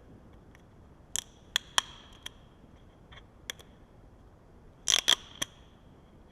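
Protective plastic film being peeled off a small monitor's screen: scattered sharp crackles and clicks, a few about a second in and a louder cluster near the end.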